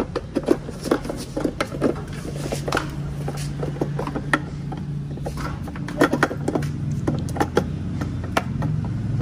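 Scattered plastic clicks and knocks as bulb sockets are handled and twisted into a Toyota Avanza tail-lamp housing, over a low steady hum.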